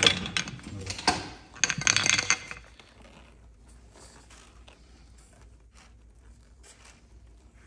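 Metal parts of a shock absorber and air spring clinking and knocking as they are handled, for about two and a half seconds. Then only a faint low sound with a few small ticks, as oil that has leaked from the failed adaptive shock absorber into the air spring drains into a plastic-lined bin.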